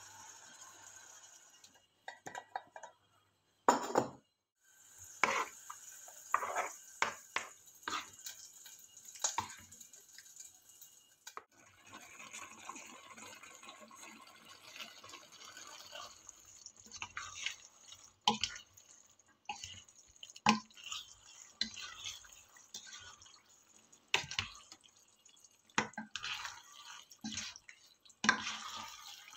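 Cream sauce simmering in a pan, with irregular wet pops and plops from bubbles breaking over a soft hiss. Near the end a spatula stirs and tosses spaghetti through the sauce.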